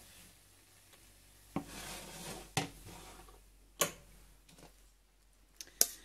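A cooking utensil scraping and knocking against a skillet while a scrambled egg and vegetable dish is scooped out onto a plate: a few sharp knocks spaced about a second apart, a short scrape after the first one, and two quick clicks near the end.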